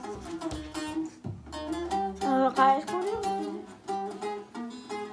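Bağlama (Turkish long-necked saz) played with quick plucked strokes, picking out a melody note by note.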